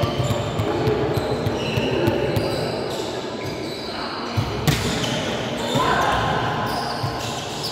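Volleyball being played in a sports hall: a few sharp smacks of the ball being hit, the loudest about halfway through, over a steady murmur of players' and spectators' voices.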